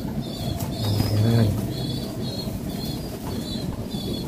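Pigeon loft birds calling: short high chirps repeating two or three times a second, with one low pigeon coo about a second in.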